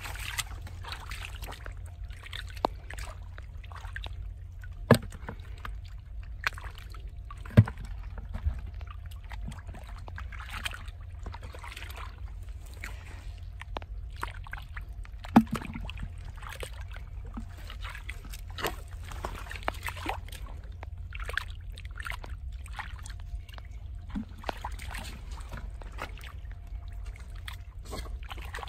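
Hands sloshing and groping through shallow muddy water, with small splashes and trickles, feeling for fish in the mud. Scattered sharp taps and knocks cut through, a few of them louder, over a steady low rumble.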